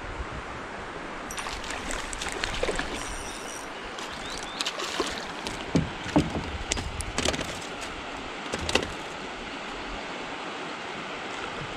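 River water lapping steadily around a plastic kayak, with scattered clicks and knocks as a small smallmouth bass is handled and unhooked aboard.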